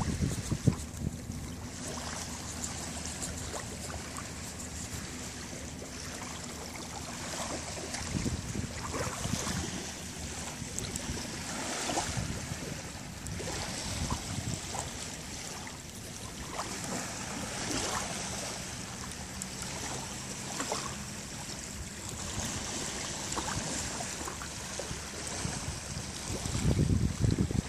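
Small sea waves gently lapping and washing up onto a sandy beach, swelling softly every few seconds.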